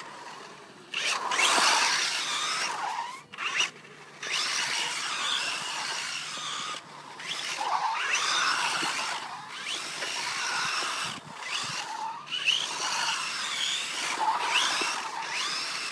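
BSD Racing Flux Assault electric RC buggy's brushless motor whining, its pitch rising and falling with the throttle, as the buggy spins and its tyres scrub on tarmac. It comes in repeated bursts with brief pauses between them.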